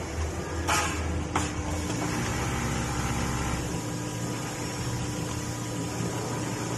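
Automatic bag-opening (pocket-welting) sewing machine running with a steady mechanical hum. There are two short hisses about a second in.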